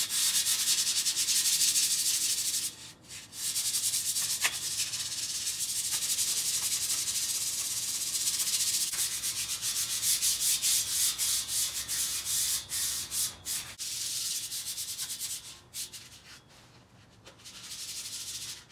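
Sandpaper rubbed by hand back and forth over the rusty metal tubes of a car roll cage, a steady scratchy rasp taking surface rust off down to bare metal. There are a couple of short pauses, and it gets quieter near the end.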